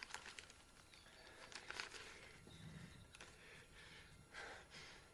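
Near silence with faint, scattered rustles and small clicks of paper being handled.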